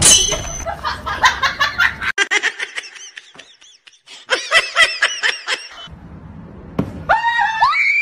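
Human laughter sound effect: quick runs of high, cackling laughs that come and go. Near the end it gives way to a rising, then held high-pitched cry.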